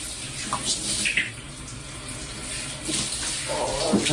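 Cold water pouring from a handheld shower onto a person, a steady spray and splash echoing in a small tiled bathroom. Near the end a man's voice exclaims at the cold.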